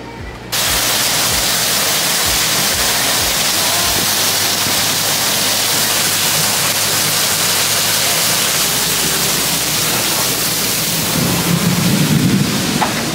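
Heavy tropical downpour: a loud, steady hiss of rain pouring down and streaming off a glass canopy, starting suddenly about half a second in. Near the end a low rumble and a few knocks come through.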